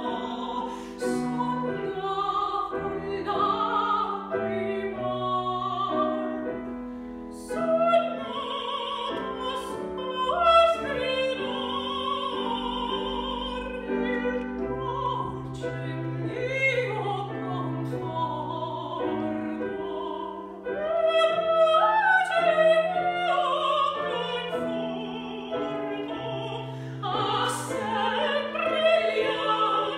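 A mezzo-soprano and a countertenor singing a Baroque opera duet in long, held lines with vibrato, accompanied by piano.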